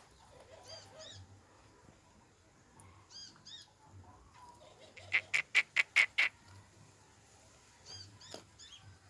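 Birds calling: faint high chirps a few times, and about five seconds in a rapid run of about eight loud, sharp notes.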